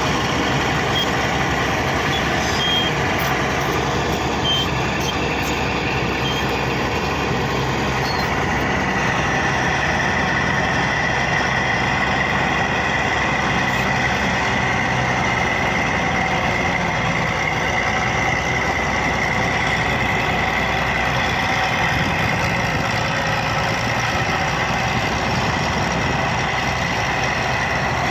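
Bulldozer's diesel engine running steadily under load while levelling, with a steady high whine that comes in about nine seconds in and holds.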